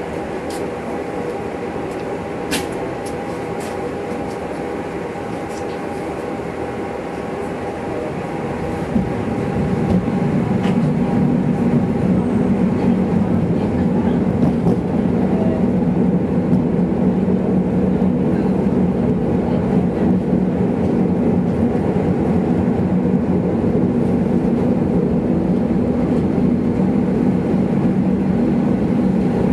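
Helsinki city tram standing with a steady hum and a sharp click about two seconds in. About nine seconds in it pulls away, and the running noise of its motors and steel wheels on the rails rises and then holds steady.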